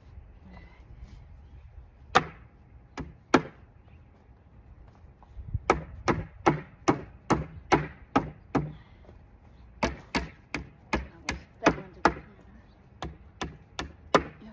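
A hammer knocking wooden dowels down into the stacked Western red cedar boards of a raised garden bed to set them even. Two single strikes, then three runs of quick blows at about three a second, with short pauses between the runs.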